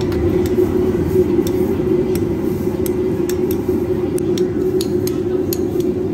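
Light clinks of a metal spoon against a china plate and the rim of a wok, about a dozen scattered through, as minced pork is scraped into boiling water. Underneath runs a steady low roar from the stall's gas burner and the busy food court.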